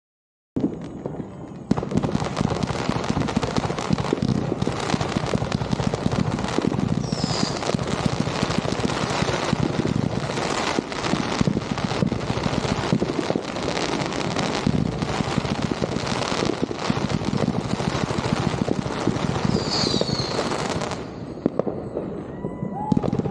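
Fireworks going off in a dense, continuous barrage of bangs and crackles, starting abruptly about half a second in and easing off near the end. Two brief high whistles cut through it.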